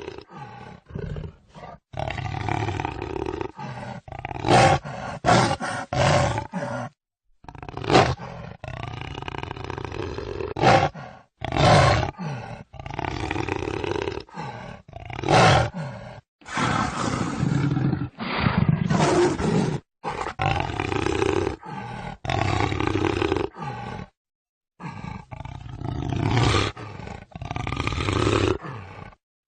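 A string of jaguar roars and growls, many separate calls of half a second to two seconds each, spliced together with abrupt cuts and short silences between them.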